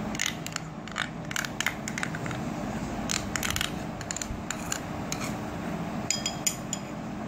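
Metal spoon scraping thick mayonnaise out of a cup into a glass bowl, with irregular clicks and scrapes of the spoon against the cup and bowl rims. A few sharper ringing taps come about six seconds in.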